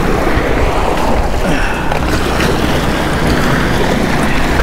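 Surf washing and breaking against the rocks of a jetty, a steady rush of water, with wind rumbling on the microphone.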